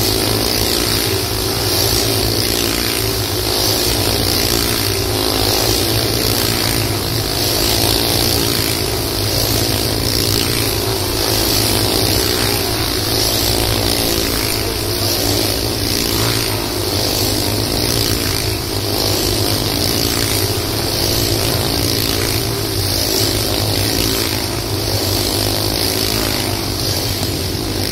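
Several small motorcycle engines running hard inside a steel mesh globe of death, a loud continuous buzzing drone as the bikes circle the sphere.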